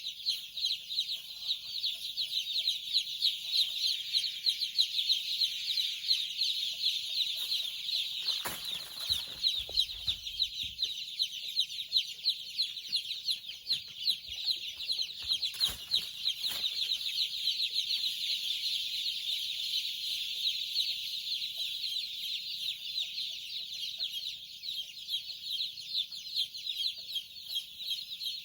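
A large crowd of young chicks peeping continuously, a dense mass of high, rapid chirps. Two brief bumps are heard about a third of the way through and just past halfway.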